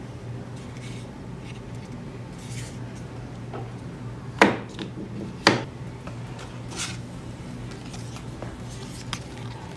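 Hands handling phone-box contents on a table: light rubbing and rustling of cardboard and plastic. About halfway through come two sharp knocks a second apart as items are set down, followed by a few fainter taps. A steady low hum runs underneath.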